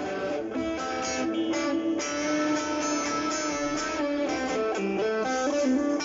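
Schecter SGR C1 electric guitar strumming chords through an amplifier's crunch tone, with no pedal. The chords change every half second or so, with some held longer.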